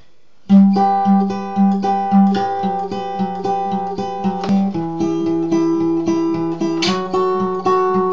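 Solo acoustic guitar playing a repeating chord pattern with the notes picked one after another, starting about half a second in.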